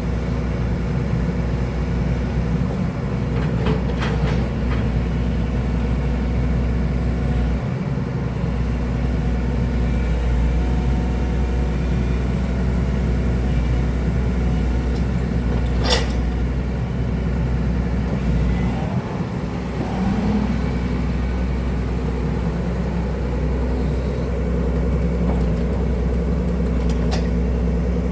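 Excavator's diesel engine running steadily, with a few sharp metallic clanks about 4, 16 and 27 seconds in.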